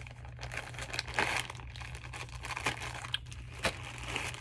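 Clear plastic zip-top packaging bag being opened and handled, its plastic crinkling irregularly, with a couple of sharper crackles about a second in and near the end.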